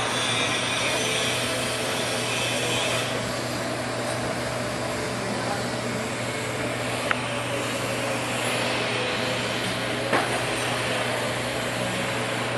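Steady machine noise with a constant low hum, and two brief clicks, one about seven seconds in and one about ten seconds in.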